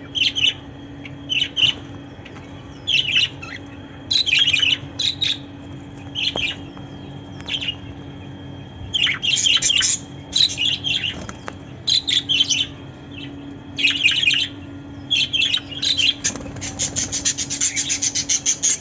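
Caged budgerigars chirping and chattering in short clusters of high calls. Near the end the calls run into a fast even series of about six chirps a second.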